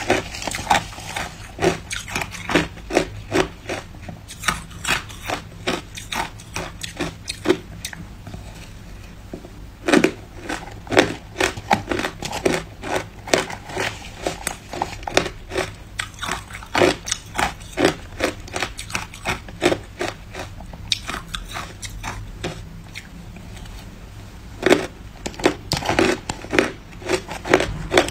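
Hard ice being bitten and crunched between the teeth in quick runs of sharp crunches, several a second, with a couple of short pauses.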